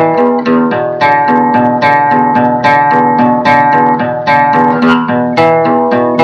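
A guitar played solo, improvising a quick run of plucked notes, several a second, each ringing on under the next.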